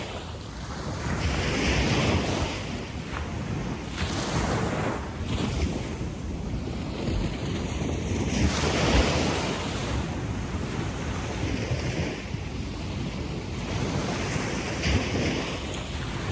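Small waves washing up a sandy beach and drawing back, the wash swelling about two seconds in and again near the middle, with wind rumbling on the microphone.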